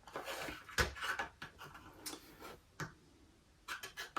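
Small clicks, light knocks and brief rustling from hands handling and fitting the small parts of a motorcycle brake master cylinder being rebuilt, with a sharper knock about a second in.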